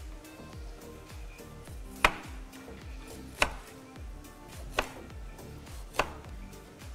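Four single knife chops on a cutting board, a little over a second apart, over background music.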